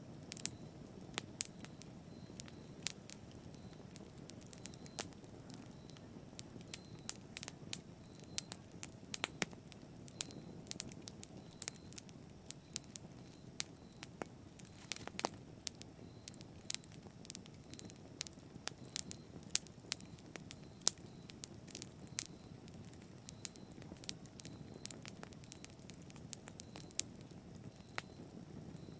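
Fire crackling in a fireplace: frequent, irregular sharp pops and snaps over a steady low rush of the flames.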